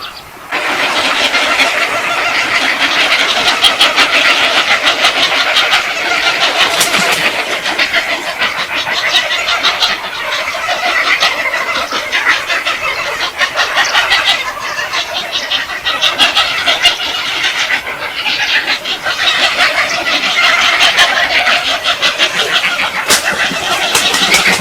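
A flock of birds calling all at once: a loud, dense, unbroken chorus of overlapping chattering calls that starts suddenly about half a second in.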